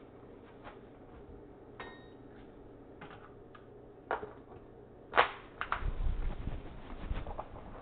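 A scattering of sharp knocks and clicks, the loudest about five seconds in, with one near two seconds in that rings briefly. A low rumbling noise follows for a couple of seconds near the end.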